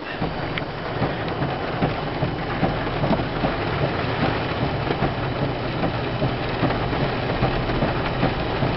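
Heavy rain falling steadily, with many small drop impacts pattering on a hard surface and a low steady hum underneath.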